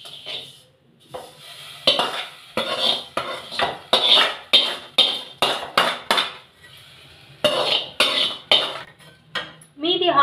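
Steel ladle scraping and knocking against metal pans in an irregular run of clinks and scrapes, roughly two a second, from about two seconds in: roasted vermicelli being scraped out of a kadai into a pot of milk.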